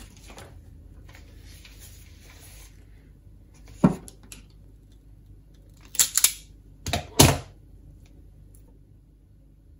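Rustling as red hookup wire is pulled off its reel, then one sharp snip about four seconds in and four more snips and clicks in quick succession a couple of seconds later, from hand tools cutting and stripping the wire.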